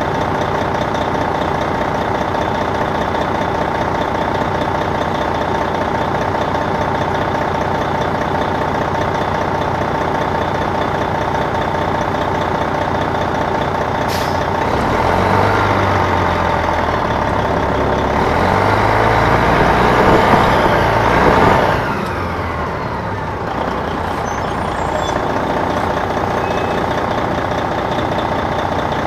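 Detroit Diesel Series 60 diesel engine of an MCI D4000 coach, heard from the rear of the bus, running steadily at idle for about half the time. After a short click about halfway, it speeds up under power with rising pitch for about seven seconds, then drops back to idle.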